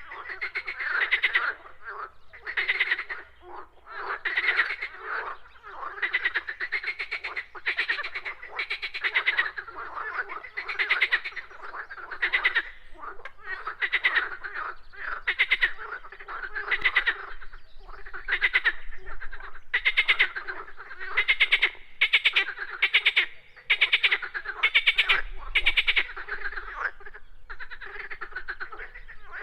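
A chorus of frogs croaking. Many calls overlap, each a quick run of rapid pulses lasting about half a second to a second, following one another almost without a break.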